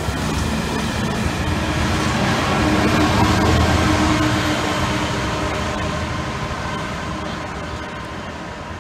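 Freightliner Class 66 diesel-electric locomotive (EMD two-stroke V12) passing close with a freight train, its engine working with dark exhaust, plus the rumble of the train on the track. It is loudest about three seconds in, then fades steadily as it moves away.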